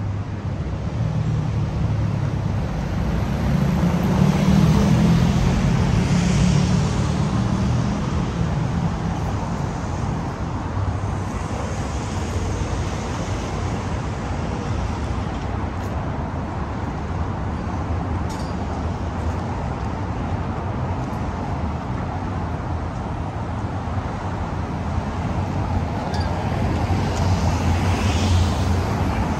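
City street traffic: steady road noise from passing cars, swelling as a vehicle with a low engine rumble goes by a few seconds in and another near the end.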